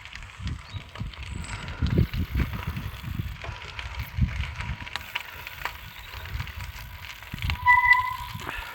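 Road bike riding, with wind rumbling on the microphone and scattered small clicks and rattles. A short electronic beep sounds near the end.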